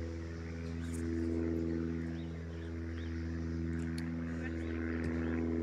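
A machine running nearby with a steady low hum, its pitch unchanging, under faint distant children's voices.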